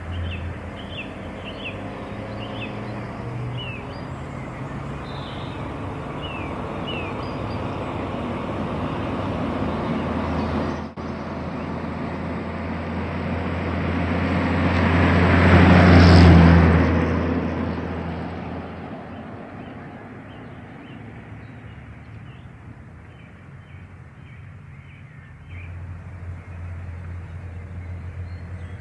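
Birds chirping over a low steady hum, then a vehicle passing by: its noise swells to its loudest about halfway through and fades away.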